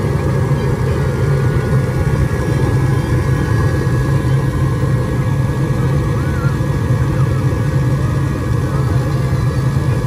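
Gas furnace firing: the blue burner flames and the draft inducer motor run together as a steady, loud low rumble with a faint thin whine above it. The burners are lit, so this time the inducer has started and the pressure switch has closed.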